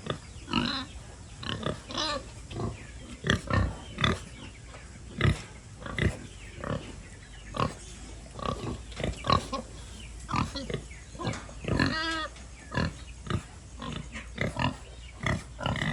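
Pigs grunting over and over, short abrupt grunts a couple of times a second, with a brief higher-pitched squeal about twelve seconds in.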